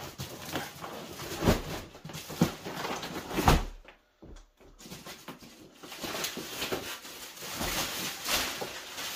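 Handling noise as a folded inflatable boat is unrolled on the floor: rubbery thumps and a few sharp knocks in the first few seconds, the loudest about three and a half seconds in. After a short lull, plastic wrapping sheet crinkles and rustles as it is pulled off.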